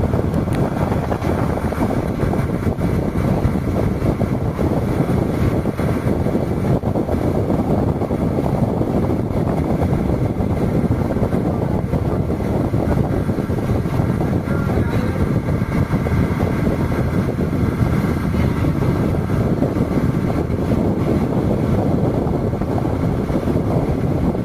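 Motorboat under way, its engine running steadily, with wind buffeting the microphone.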